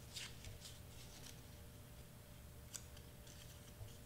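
Faint, scattered rustles and light taps of cardstock paper butterflies being handled on a cutting mat, a few short crisp sounds spread through near silence.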